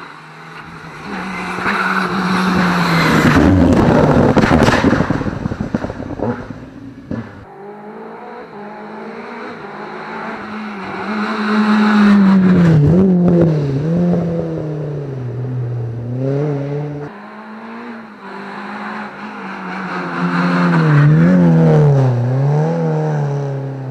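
Rally cars passing one after another, three passes in all. Their engines are revved hard, the pitch dipping and climbing again and again as the drivers lift, brake and change gear. The loudest pass, about four seconds in, comes with a rush of noise.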